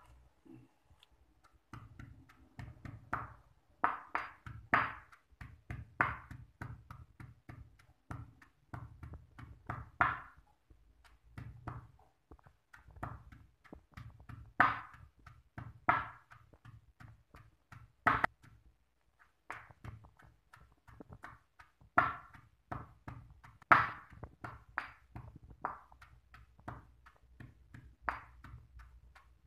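Stone pestle pounding chopped shallots, turmeric and chilies into a spice paste in a heavy stone mortar (batu lesung): repeated dull knocks at an uneven pace, a few much louder than the rest.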